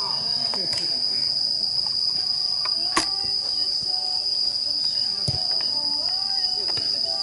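Insects chirring in one steady, unbroken high-pitched drone, with a single sharp knock about three seconds in.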